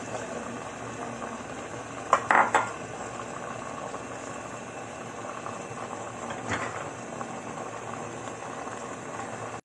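A pot of tuna in coconut milk simmering with a steady bubbling, broken by a quick cluster of sharp knocks on the stainless steel pot about two seconds in and a softer one about six and a half seconds in.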